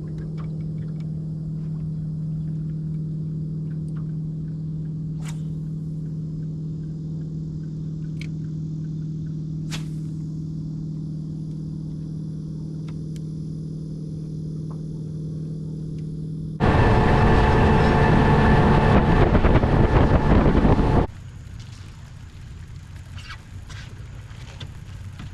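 Boat's Mercury outboard motor running with a steady hum. About two-thirds of the way in there is a loud, noisy rush lasting about four seconds, then the hum carries on more quietly.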